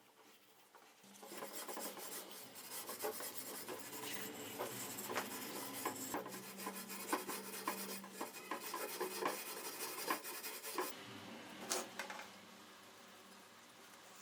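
Steady abrasive rubbing and scraping by hand, with scattered light clicks. It starts about a second in and drops off near the end, with one sharper click after it.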